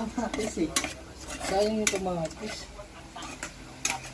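Metal spoon scraping and clinking against a rice cooker's inner pot while stirring sardines, with a few sharp clicks scattered through.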